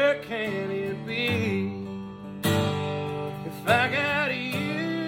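Country song with acoustic guitar and a sung vocal line, between lyric phrases.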